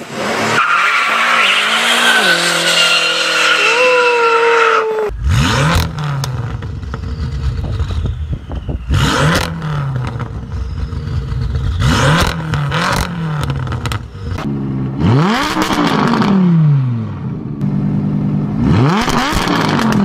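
BMW F10 M5's twin-turbo 4.4 L V8 running hard at speed for the first few seconds. Then it is revved repeatedly at a standstill: short, sharp throttle blips through the exhaust, each climbing quickly and falling back. The last two revs are longer and go higher.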